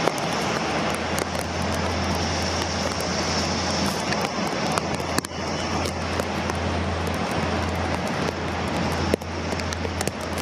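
Airbus A350-900 taxiing, its Rolls-Royce Trent XWB jet engines at low thrust: a steady rumble with a constant low drone and a high hiss, and scattered small clicks.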